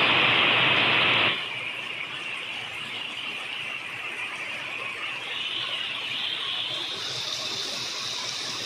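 Steady rushing hiss of falling water, loudest for about the first second and a half, then settling to an even level.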